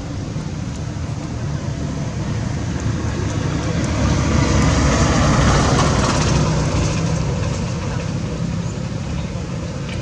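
A motor vehicle drives past, its engine and road noise growing louder to a peak about halfway through and then fading away.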